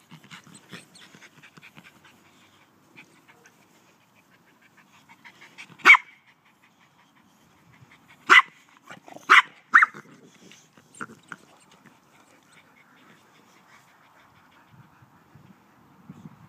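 Boxer dog barking at a leaf she is wary of: four loud, short barks, one about six seconds in and three in quick succession about two seconds later, with faint sniffing and rustling in the grass before them.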